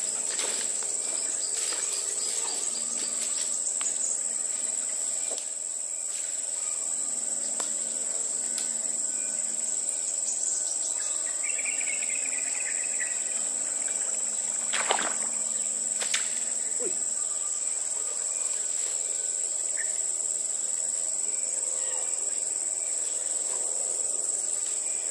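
Insects buzzing in one steady, high-pitched note, with a couple of sharp clicks about two-thirds of the way through.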